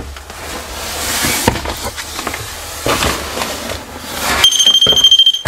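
Footsteps and scuffing on a bare floor, then about four and a half seconds in a loud steady high-pitched electronic tone sounds for about a second: a REM pod's alarm going off.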